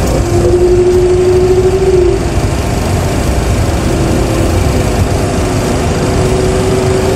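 Simulated engine noise of a Boeing 737 Classic full-flight simulator, its CFM56 jet engines at low thrust: a steady low rumble with a whining tone that is strong for the first two seconds, weakens, and comes back near the end.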